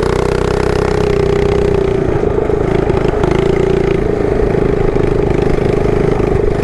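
Mini bike's small engine running steadily under way, with a slight waver in pitch a couple of seconds in.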